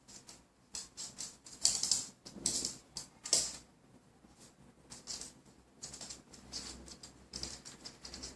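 Toy poodle puppy's claws tapping and scratching in quick, irregular patters as it scrabbles about. The scrabbles are loudest during a few flurries in the first few seconds, then turn to lighter scattered taps.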